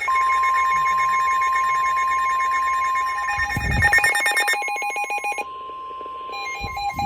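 Several NOAA weather radio receivers alerting at once: the steady 1050 Hz warning alarm tone with the radios' own rapid electronic beeping layered over it at several pitches, signalling an incoming severe weather warning. A brief low thump comes about halfway through and another near the end.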